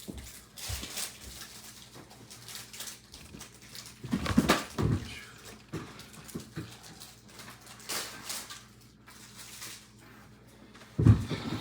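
Handling noises: scattered rustling swishes, with a soft thump about four and a half seconds in and a louder one near the end.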